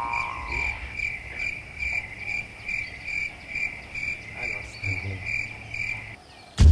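Cricket chirping used as a comic 'crickets' sound effect: an even run of high chirps, about two and a half a second, that cuts off suddenly near the end. Right at the end a sudden loud knock breaks in.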